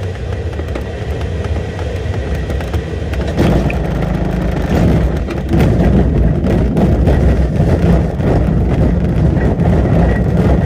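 Airflow rushing past a glider just above the grass, then about three seconds in the wheel touches down and rumbles and knocks as the glider rolls out over a rough grass strip dug up by pigs.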